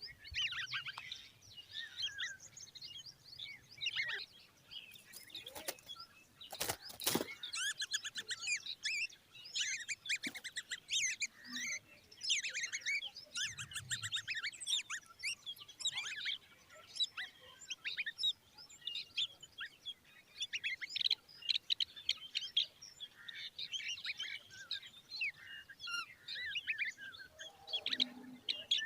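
Common babbler fledglings chirping in rapid, overlapping series of high calls, with a brief crackle about a third of the way in.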